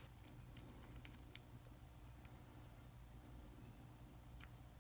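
Faint, scattered light clicks of a lock pick and tension wrench working the pin tumblers in a U.S. General padlock's cylinder, about ten in all, over a faint low hum.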